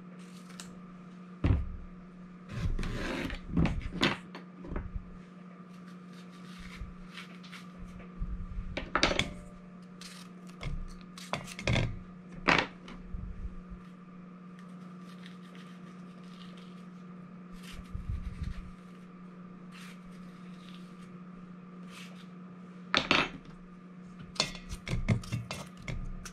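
Scattered knocks and clinks of a knife and spoon on a wooden cutting board, and cucumber halves dropped into a stainless steel bowl, as cucumbers are split and their seeds scraped out. A steady low hum runs underneath.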